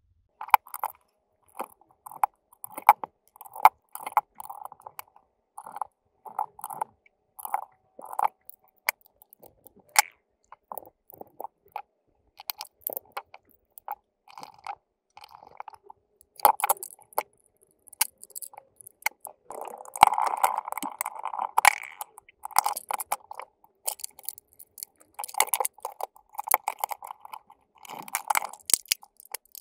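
Plastic housing parts, circuit boards and a small screwdriver being handled while a 3Dconnexion SpaceMouse Pro is put back together: an irregular run of short clicks, taps and crackles.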